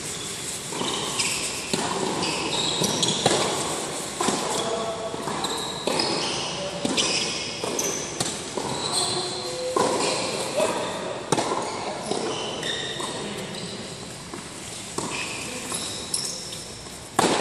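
Tennis balls being hit with rackets and bouncing on an indoor hard court: a series of sharp knocks, irregularly spaced, each ringing briefly in the large hall.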